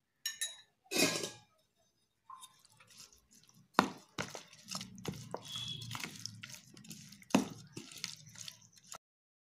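A steel spoon stirring raw chicken pieces through a thick, wet curd and cornflour marinade in a plastic bowl, making a continuous wet squelching. Sharp knocks sound where the spoon strikes the bowl, the loudest about four seconds in and again near the end. The sound cuts off suddenly shortly before the end.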